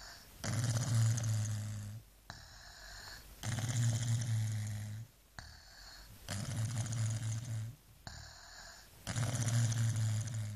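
A sleeping baby snoring: four long snores about three seconds apart, each with a low steady drone, and a quieter breath between them.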